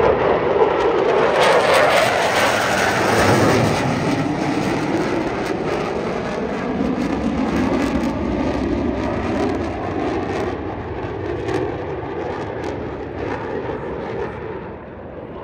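Jet engine noise from Blue Angels F/A-18 Super Hornets passing overhead, shifting in pitch as they go by, then fading steadily as they fly off.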